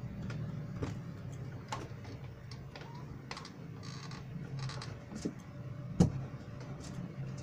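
Scattered clicks of a computer mouse and keyboard being operated, with one sharper, louder click about six seconds in, over a steady low hum.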